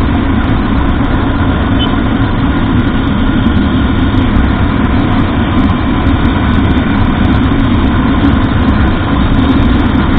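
Honda Livo's single-cylinder 110 cc engine running at a steady speed while the motorcycle is under way, mixed with a steady rumble of wind and road noise.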